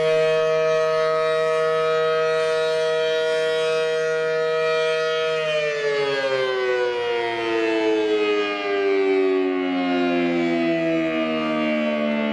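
Federal Signal Model 5T outdoor warning siren sounding a steady two-tone chord at full speed. About halfway through it starts to wind down, both tones gliding slowly lower.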